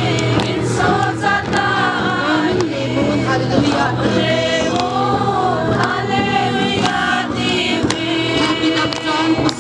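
A congregation of many women singing a hymn together, their voices blended in one steady group song.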